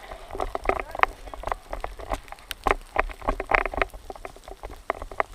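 An irregular run of short, sharp clicks and knocks, several a second, some louder than others.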